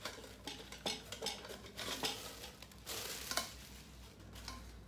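Hard-anodized aluminium camping pots of a Fire Maple FMC-206 cook set being handled and pulled out of one another: scraping and light clinks and rattles of metal on metal, busiest about two to three seconds in.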